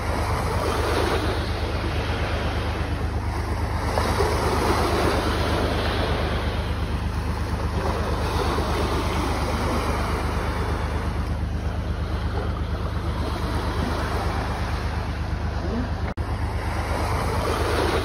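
Small waves washing onto the shore of a bay, the wash swelling and easing every several seconds, over a steady low rumble.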